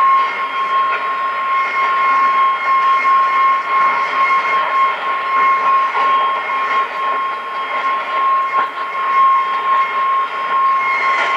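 Shortwave AM reception on a Kenwood R-1000 receiver: a steady hiss of static and noise with a steady high whistle and a fainter second whistle above it, the signal swelling and fading.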